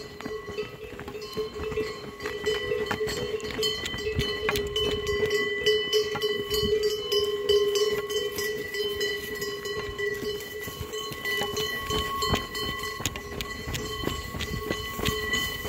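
Cowbells on a small herd of walking cows clanking continuously, with the clop of hooves and footsteps on asphalt.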